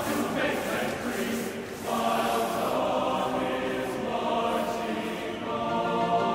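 Several voices singing together in a choir-like chant, settling into long held notes about two seconds in.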